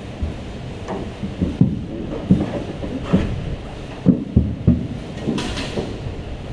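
Irregular dull knocks and clunks of a fuel tank's mounting feet and hardware being handled and set in place in a truck bed, with a short scrape about five seconds in.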